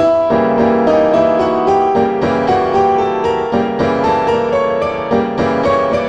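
Background piano music: a slow, flowing line of single notes, about two a second, over sustained lower chords.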